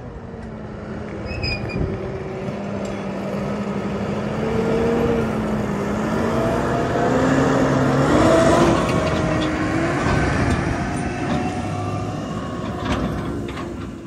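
A New Holland T7 tractor pulling an empty flatbed bale trailer drives past. Its engine gets louder as it comes close, peaks and rises in pitch about eight seconds in, then fades as it pulls away, with a few knocks near the end.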